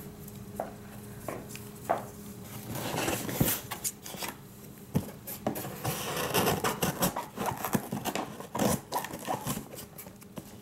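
Hands handling a cardboard shipping box and a pair of scissors: a few light knocks, then irregular scraping and rustling of cardboard and tape with small clicks.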